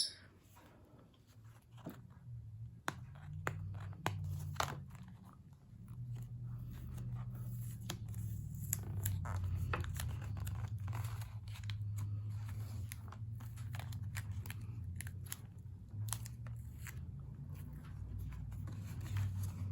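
Packaging being unwrapped by hand: scattered crinkles, small tears and clicks of paper and plastic, over a steady low hum.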